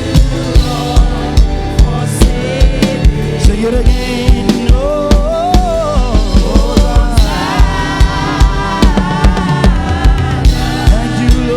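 Live gospel praise music: a drum kit keeps a steady beat under bass and keyboard while the worship team sings a wordless or unrecognised melody.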